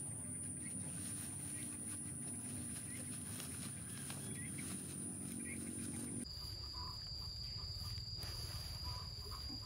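Faint rustling of rice straw as bundles are handled on a bamboo shoulder pole, under a steady high whine that drops abruptly to a lower pitch about six seconds in.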